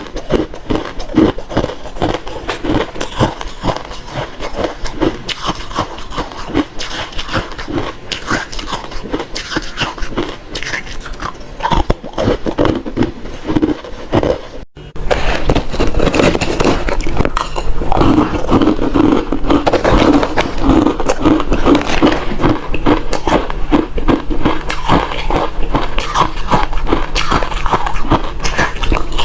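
Close-up chewing of refrozen crushed ice: dense, continuous crunching with many sharp cracks. There is a brief break about halfway through, and after it the crunching is louder and busier.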